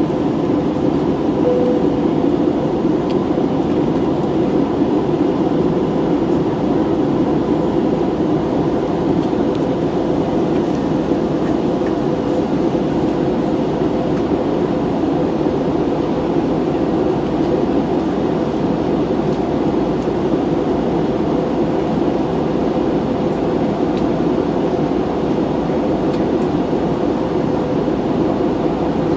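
Airliner cabin noise in cruise flight: a steady, even rush of engine and airflow noise with a faint steady hum running through it.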